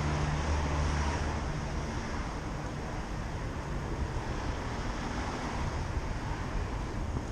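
Steady rush of wind and street noise heard from a bicycle while riding. A low vehicle hum sits under it in the first second or so, and the whole rush eases off slowly.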